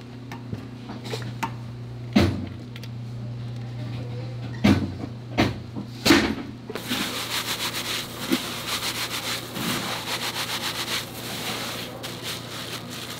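A long metal ladle knocking against the rim of a stainless-steel pot of syrup four times, over a steady low hum. In the second half a dense, fast rattling rustle follows, as rice grains are tossed by hand in a plastic basket.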